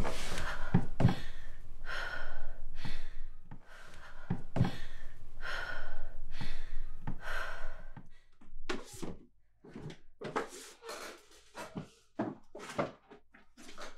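A person breathing heavily and fast, about one breath a second, over a low hum, with a few dull thuds. After about eight seconds it gives way to quieter short clicks and rustles.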